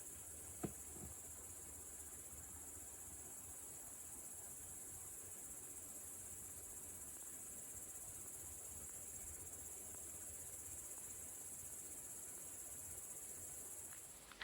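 A steady, high-pitched chirring chorus of insects in summer meadow or forest, unbroken throughout, with one faint click about a second in.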